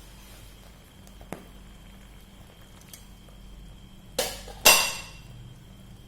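Kitchenware clinking: a light tick about a second in, then two sharp clinks about half a second apart near the end, the second the louder, each ringing briefly.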